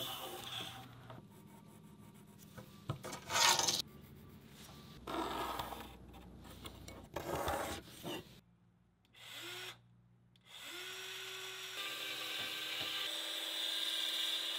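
Hand tools rubbing and knocking on mahogany boards as they are measured and marked, then a power tool spins up with a rising whine and runs steadily through the last few seconds.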